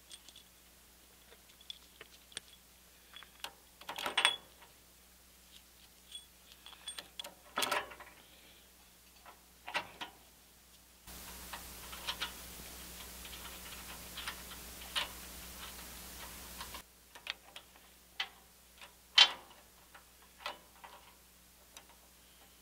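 Metal clicks and clinks from a cast-iron pillow-block bearing cap being set in place and its bolts fitted and snugged down with an adjustable wrench. There is a steady hiss for several seconds in the middle.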